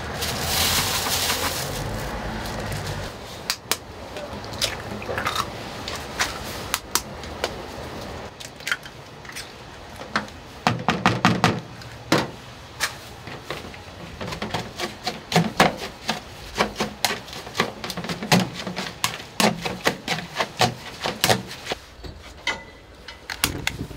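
Kitchen handling sounds: a plastic bag rustling as it is pulled out of an ice cooler, then a long run of sharp taps and knocks as eggs are cracked against a bowl of shredded cabbage and carrot.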